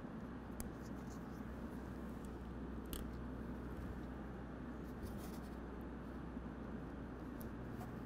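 A few faint plastic clicks and handling sounds as blade fuses are pushed into red inline fuse holders and their snap caps closed, over a steady low hum.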